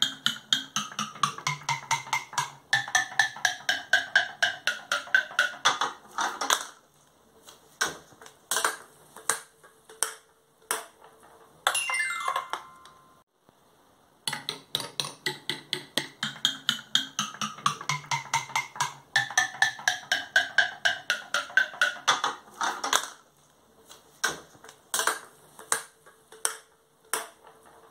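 A small plastic ball bouncing down the painted wooden leaves of a sound tree. A fast series of wooden clacks, each leaf ringing its own note, steps down in pitch over about six seconds, followed by a few scattered knocks and then a brief run of ringing notes sliding down. After a short pause the same sequence plays again.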